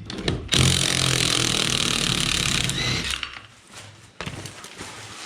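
A power tool runs steadily for about two and a half seconds, then cuts off. It is spinning off the corroded lug nuts on a trailer wheel hub, which are so seized that the studs pull out with them.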